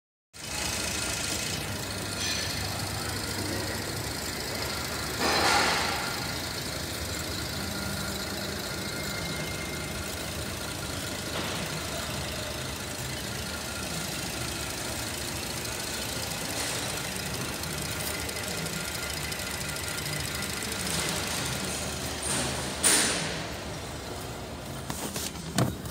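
Holden Commodore 3.6-litre V6 idling steadily with the bonnet open. A couple of brief louder noises come about five seconds in and again near the end.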